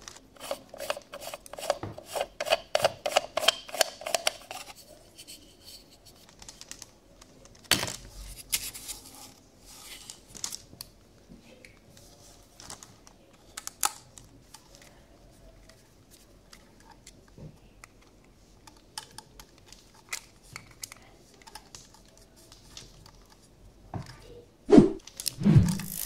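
Small plastic and metal parts of an old telephone handset being handled and pried at: a fast run of fine clicks and scrapes over the first few seconds, then scattered light taps and clicks. Near the end a swooping cartoon-like sound effect comes in.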